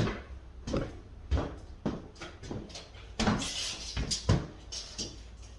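Irregular knocks, clicks and scrapes of laminate or vinyl flooring planks being handled and positioned on the floor.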